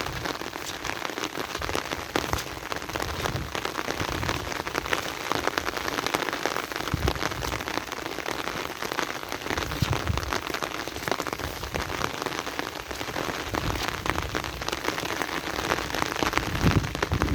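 Heavy rain falling steadily, a dense patter of drops striking a hard surface, with a few brief low rumbles now and then.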